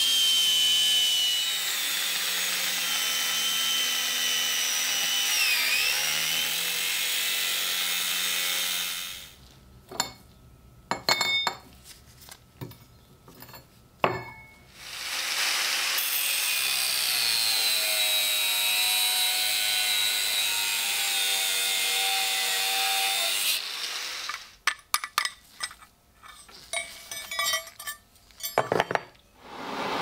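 Angle grinder with a thin cut-off disc running and cutting a curved piece of metal clamped in a vise, its whine dipping in pitch as the disc bites. It stops about nine seconds in, leaving a few sharp clinks and taps, runs and cuts again from about fifteen seconds to about twenty-three, then more scattered clinks and knocks.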